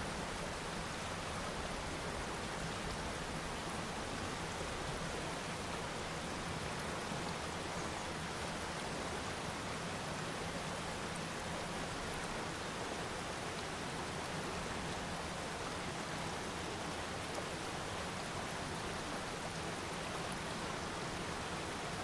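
Mountain waterfall pouring over rocks: a steady, unbroken rush of falling water.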